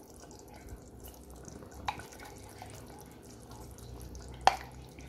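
Thick onion and cashew paste dropping off a spatula into a pot of gravy, with soft wet plopping and scraping. There is a small knock about two seconds in and a sharper, louder knock about four and a half seconds in, from the utensils against the pot.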